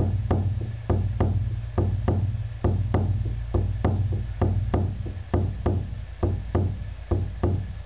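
Shamanic hand drum beaten in a steady, even rhythm of about two beats a second, each beat a low boom: the driving beat of a shamanic journey.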